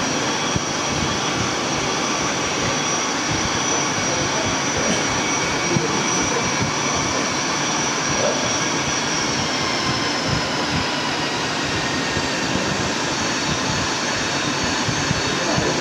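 Jet-airliner engine sound effect played over the model airport's loudspeakers: a steady engine rush with a high whine that sinks slightly about ten seconds in.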